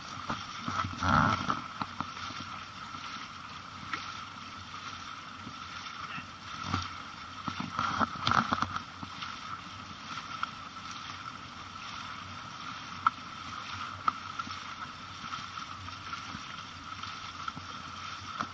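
Water rushing and splashing around a dragon boat as its crew paddles, under a steady high hum, with a few louder surges of splashing and a couple of sharp knocks.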